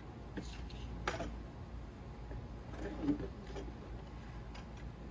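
Scattered light clicks and knocks of hard plastic being worked by hand, as the tabs holding a fuel level sender to a stock fuel pump module are pried at: a sharp click about a second in and a duller knock about three seconds in, over a low steady hum.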